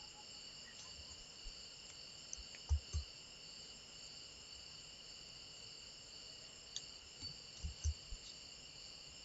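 Faint, steady high-pitched background whine, with two pairs of soft low thumps, one pair about three seconds in and another about eight seconds in.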